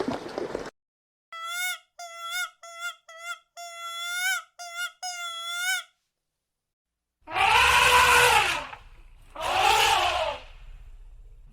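Animal calls: a run of about a dozen short, clean pitched calls, each rising at the end, then after a pause two long, loud calls that rise and fall in pitch.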